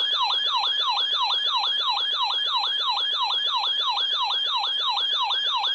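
Electronic siren-style emergency weather alert tone, warbling rapidly up and down about four times a second.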